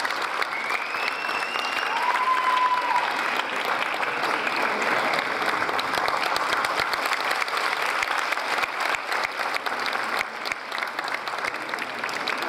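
Audience and performers applauding, a dense steady clapping.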